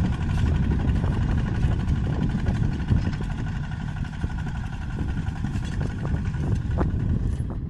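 Farm tractor's diesel engine running steadily as it pulls a disc plough through the soil.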